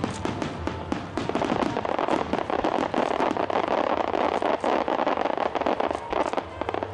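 A starmine fireworks barrage by Sanen Enka: many shells bursting and crackling in rapid succession. The cracks come thickest through the middle.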